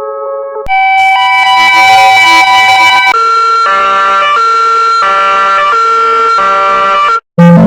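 Digitally altered ambulance siren sound effects played back to back. A higher-pitched version runs for about two seconds, then a version pulsing about twice a second. It cuts off shortly before the end, when the next version begins.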